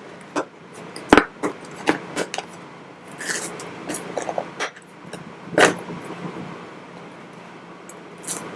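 A cardboard box and its packing being worked open by hand: irregular rustling and crinkling with scattered clicks, and sharp knocks about a second in and again past the middle.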